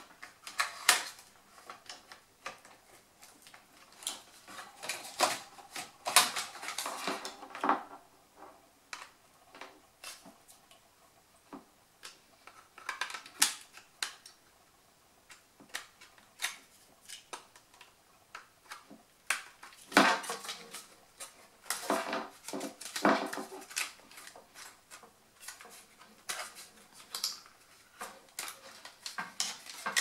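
Irregular metal clicks, knocks and clatters of a Dell Optiplex 3010 SFF's sheet-metal drive caddy and slim DVD drive being handled and pulled out of the case, coming in clusters.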